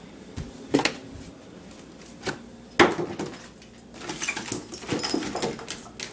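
Pet dog making short sharp sounds, one just under a second in and a louder one near three seconds, then a busier spell of smaller noises.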